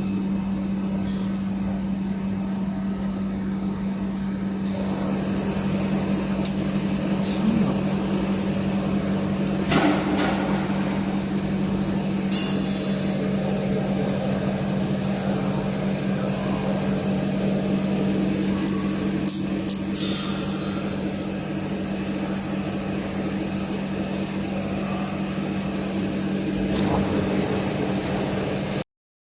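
ALTCK65DY CNC turning and milling machine running during machining: a steady hum with a broad whirr of cutting and machine noise and a few sharp knocks. It cuts off suddenly near the end.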